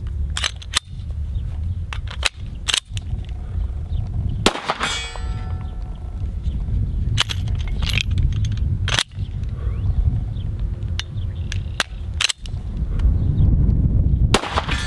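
A semi-automatic pistol being worked through a malfunction drill after a dead trigger. There are sharp clacks of the slide being racked and the magazine dropped and reseated. Two pistol shots, one about four and a half seconds in and one near the end, are each followed by a metallic ring.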